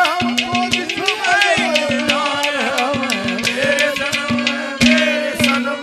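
Haryanvi ragni folk music played on ghada (clay-pot drum) and benju, with a quick, dense run of pot strokes under a wavering, gliding melody and a steady low drone.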